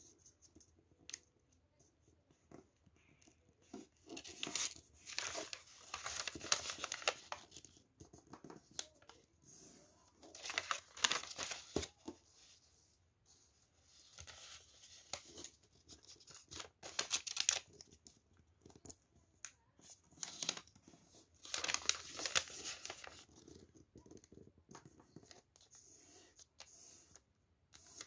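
Sheet of origami paper rustling and crinkling as it is folded by hand and its creases pressed flat, in irregular bursts with short pauses between.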